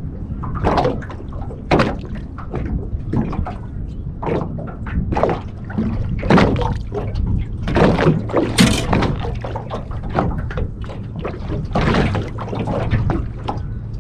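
Small waves slapping irregularly against the hull of a drifting boat, a quick string of uneven knocks and splashes over a steady low rumble.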